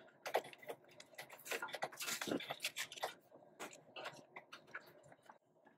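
Fingers pressing self-adhesive LED strip down onto the reflector of an old fluorescent fixture: irregular light clicks and taps with some rustling, busiest in the first half.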